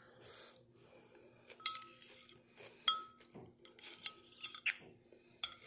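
A metal spoon clinking against a ceramic soup bowl while eating noodle soup: several sharp clinks with a brief ring, the loudest about a third and halfway in.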